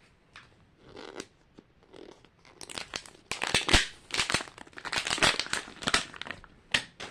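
Plastic packaging being torn open and crinkled: a few faint clicks at first, then about three and a half seconds of loud rustling and tearing from around the third second.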